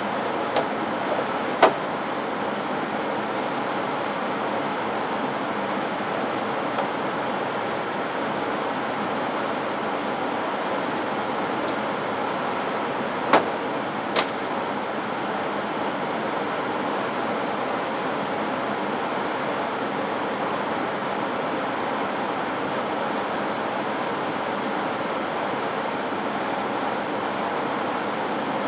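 Steady rushing of a ventilated lab hood's blower fan. A few sharp clacks of plastic mouse-cage lids and cages being handled sound near the start and twice about halfway through.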